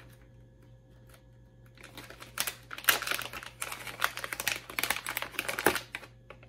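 Crinkling and crackling of a plastic soft-bait package being handled and opened to take out a lure, a rapid run of crackles starting about two seconds in.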